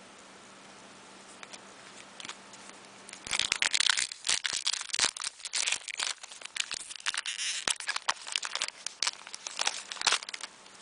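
A trading card pack wrapper being crinkled and torn open by hand, a dense run of irregular crackling starting about three seconds in after a few faint clicks.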